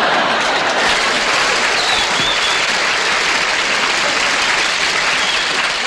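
Studio audience applauding steadily after a joke, easing off slightly near the end.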